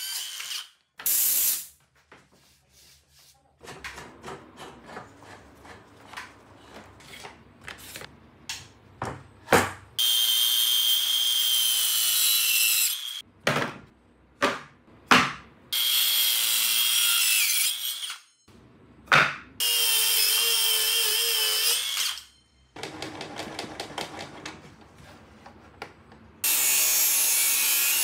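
Woodworking power tools: a compact circular saw finishing a cut, then four few-second runs of motor-driven tools with a whining motor, separated by knocks and clatter of pine boards and clamps being handled. Near the end a table saw starts cutting through a board.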